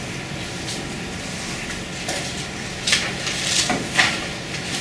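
Classroom room tone: a steady hiss with a faint hum, broken by a few short, sharp noises in the second half.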